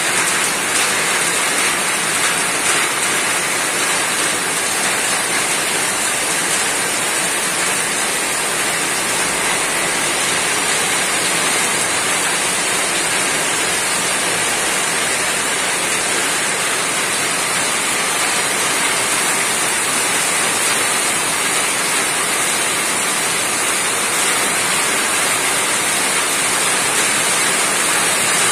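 Rain falling steadily on a roof: a dense, even hiss of many drops with no single drop standing out.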